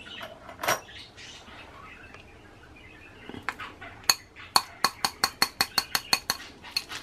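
Wire whisk beating a soft margarine mixture in a glass bowl, its wires clinking against the glass. A few scattered taps come first, then about halfway through a fast, even beat of about five clinks a second.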